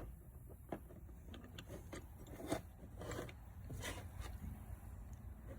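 Faint scattered clicks and taps of hose parts and tools being handled, over a low steady hum.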